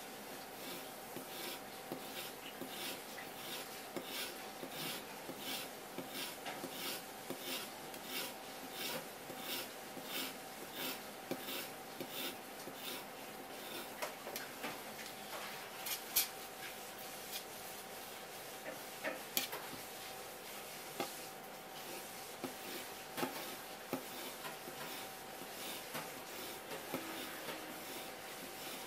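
Kitchen knife slicing skinned spear squid mantle into thin strips on a wooden cutting board, each stroke ticking against the board about twice a second. About halfway through the steady strokes give way to scattered knocks and rubbing as the squid is handled. A faint steady hum runs underneath.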